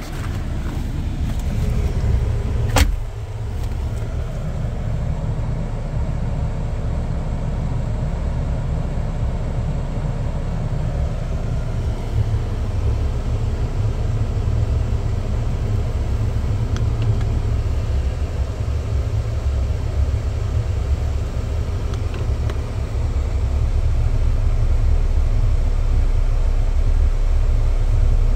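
Jeep Wrangler's engine idling, heard as a steady low rumble inside the cabin, with one sharp click about three seconds in.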